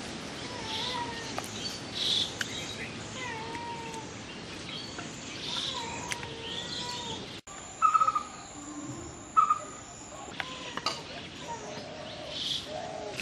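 Birds calling again and again over a steady outdoor hiss, with a few sharp knocks in the middle.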